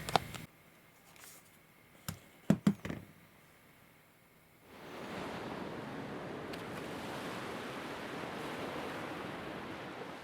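A few clicks and light taps of a camcorder being handled, then a steady even hiss that starts about halfway through and holds.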